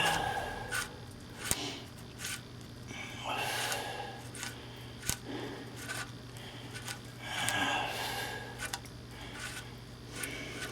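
Light metallic clicks and small scrapes as the rear hub's retaining nut on a Chevrolet 3500HD full-floating axle is spun off by hand, with two longer hissing sounds about three and seven seconds in over a steady low hum.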